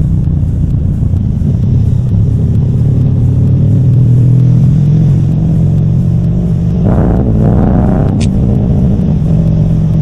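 A vehicle engine running steadily with a low, constant hum. About seven seconds in, a brief higher-pitched sound lasts about a second.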